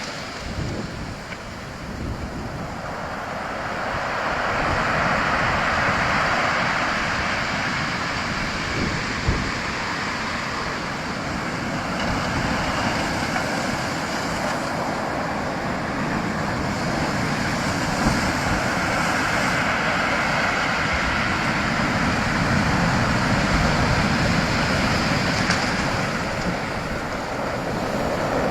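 Sea waves breaking and washing in, the surf swelling louder a few seconds in and again near the end, with wind rumbling on the microphone.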